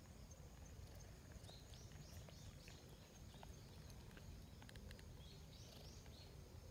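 Near silence: faint outdoor ambience with a low rumble, and a few faint, short, high bird chirps about two seconds in and again near the end.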